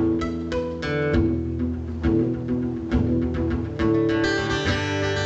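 Acoustic guitar playing an instrumental passage between verses of a folk song: single plucked notes over a bass line, moving into fuller strummed chords near the end.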